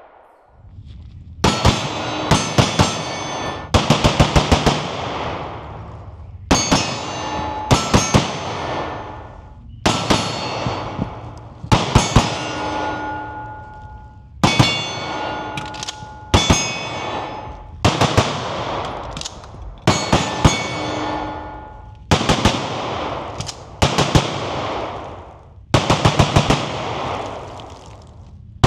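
Strings of 9mm pistol shots from a ported CZ Shadow 2 Compact, a few quick shots about every two seconds. Each string is followed by the ringing clang of struck steel targets.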